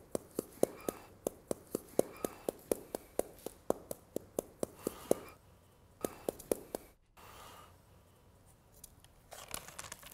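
A small cloth pouch of pigment powder dabbed quickly against perforated paper laid on plaster, pouncing the pattern's lines onto the wall surface: soft, sharp pats a little over three a second, stopping about five seconds in, with a few more a second later. Near the end comes a paper rustle as the pattern sheet is lifted off.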